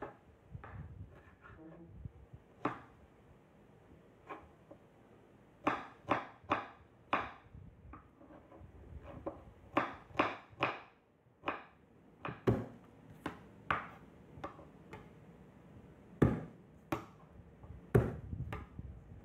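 Kitchen knife chopping on a wooden cutting board: irregular knocks of the blade striking the board as red pepper and then garlic are cut, coming in short runs of quick strokes with pauses between.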